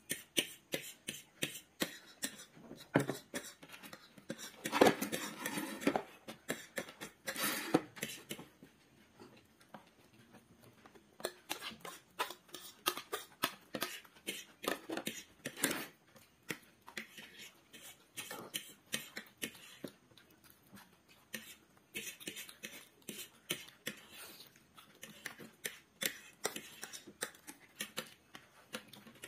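Metal forks clicking and scraping against plates while food is eaten, as a string of short taps with quieter pauses in between and a louder cluster about five seconds in.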